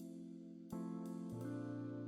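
Background music: held chords that change about two-thirds of a second in and again a little past a second, with a few light high ticks.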